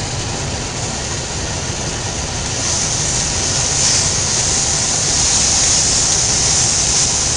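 Blended onion sizzling as it hits hot rice browning in a pot on the stove, the hiss getting louder about two and a half seconds in.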